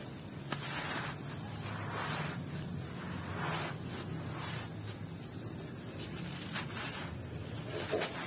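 A dry clump of gritty, gravelly dirt being crumbled by hand, with loose grit and dust pouring down onto gravel in several soft hissing pours and a few sharp ticks of small stones.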